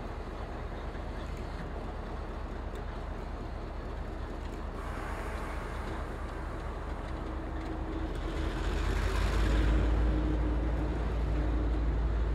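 Diesel shunting locomotive engine running under load with a deep rumble as it moves a dead Garratt steam locomotive, the engine getting louder about eight seconds in, with a steady low hum.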